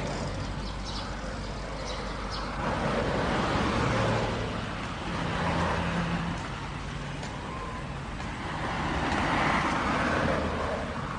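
Road traffic: passing vehicles make a steady noise that swells about four seconds in and again near the end.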